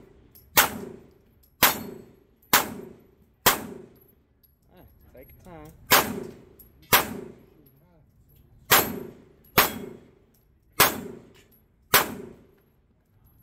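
Ten 9mm pistol shots at a steel dueling-tree target, each shot followed by the brief ring of a steel plate being hit. The shots come roughly a second apart, with a pause of about two seconds near the middle.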